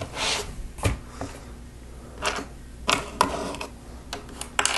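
Small plastic Lego pieces clicking and rattling as they are handled and pressed into place: a scattered series of short clicks and brief rustles.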